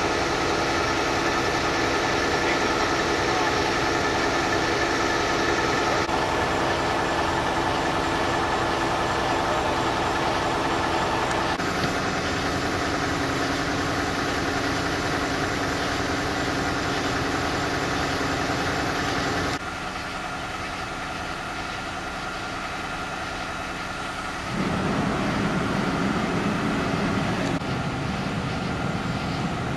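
Steady idling of vehicle engines, a constant low hum with a few steady tones. The sound changes abruptly several times: it drops quieter about two-thirds of the way through and comes back up about five seconds later.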